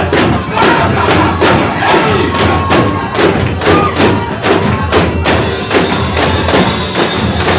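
Live worship music with a steady, fast drum beat and jingling tambourines under voices singing.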